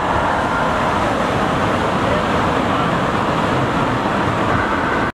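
Steady roar of heavy surf breaking, with faint distant voices under it.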